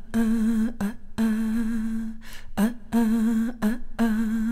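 A voice humming a low held note with a slight waver, in short repeated phrases about every second and a half; each long note is led in by a brief lower note. It is the opening of a song.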